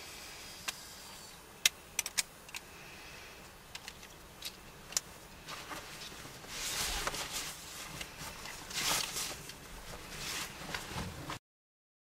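Handling noise: a few sharp clicks over a faint hiss, then louder rustling and rubbing from about halfway through, cutting off abruptly near the end.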